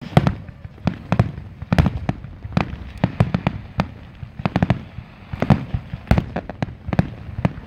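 Aerial firework shells bursting in a rapid grand-finale barrage: sharp bangs several times a second, overlapping, over a continuous low rumble.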